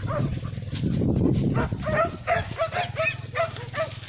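Hunting dogs barking: a quick run of about ten short barks, roughly three a second, starting about a second and a half in, over a low steady rumble.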